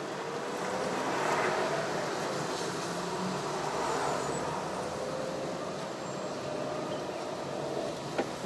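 Car driving in city traffic, heard from inside the cabin: steady engine and road noise with a faint whine that slowly rises and falls. It swells twice, about one and a half and four seconds in, and there is a single sharp click near the end.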